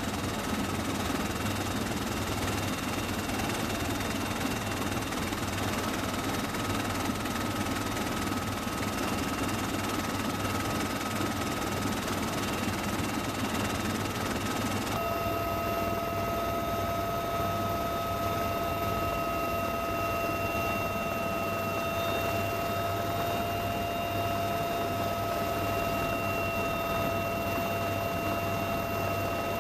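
Steady drone of a military helicopter in flight, heard from inside the cabin at the open door-gun position, with thin steady whining tones over the noise. About halfway through, the hiss dulls and a second, lower whine tone comes in.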